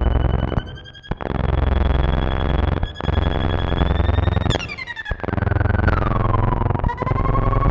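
Alesis Andromeda analog synthesizer playing a noisy, metallic patch made with audio-rate modulation, full of clangorous buzzing overtones. A high whistling tone holds, then glides down in pitch about halfway through. The sound drops out briefly a few times as notes are restarted.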